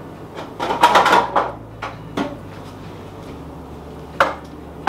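Stacked dark metal Norpro loaf pans clattering as they are fetched and handled: a rattle about a second in, then a few separate sharp knocks.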